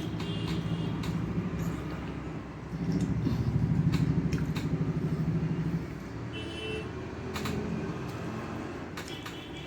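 A motor vehicle's engine running, with a low pulsing rumble that grows louder for about three seconds in the middle and then drops back. Short high horn toots sound at the start and about two-thirds of the way through, over small clicks.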